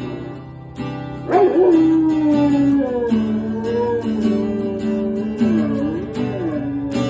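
A fluffy shepherd puppy howls along to acoustic guitar strumming. After a short pause in the guitar, the howl starts about a second and a half in as one long note sliding down in pitch, then wavers up and down toward the end.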